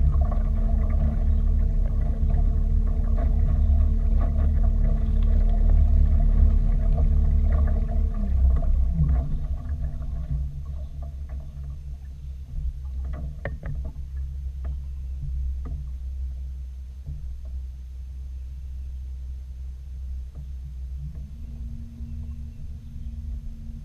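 A motor running with a low rumble and a steady hum whose pitch steps down about a third of the way in, then back up near the end, with a few sharp knocks in the middle.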